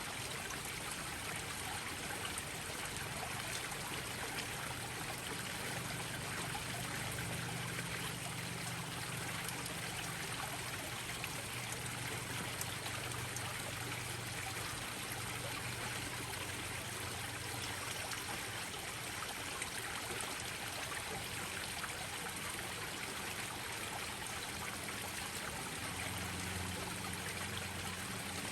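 Small waterfalls splashing and trickling steadily into a koi pond.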